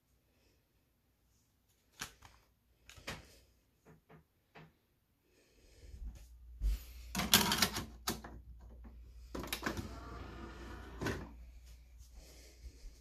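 A few sharp clicks of a plastic DVD case being handled and the disc being pried off its hub, then several seconds of louder rustling and knocking handling noise.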